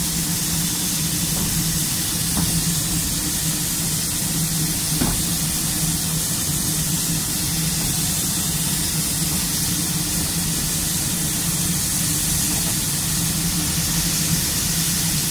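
Steam locomotive on the move, heard from on board: a steady hiss and rumble with a held low hum, and a faint click or two.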